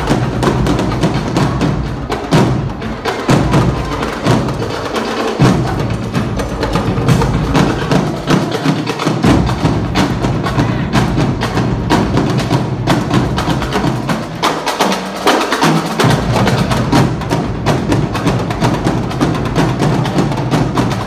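Marching drumline of snare drums, tenor quads and bass drums playing a fast cadence, a dense run of sharp stick hits throughout. The bass drums drop out for a moment a few times.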